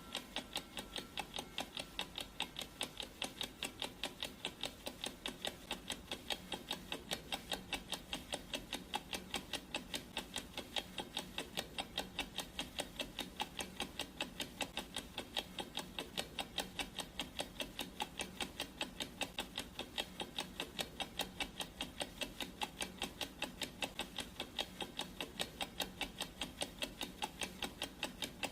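Clock ticking sound effect: a steady, evenly spaced tick-tock at several ticks a second.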